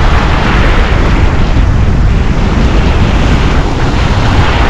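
Strong wind buffeting the microphone, a loud steady deep rush, mixed with surf washing up on the beach.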